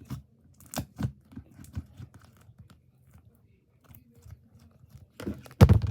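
Slime being squished and pressed back into its container, making small sticky clicks and crackles. Near the end comes a louder single thump.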